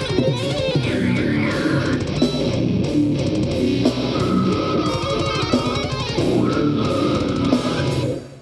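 Metalcore band playing live through a stage PA: distorted electric guitars, bass guitar and drums, loud and dense, cutting off abruptly near the end as the song finishes.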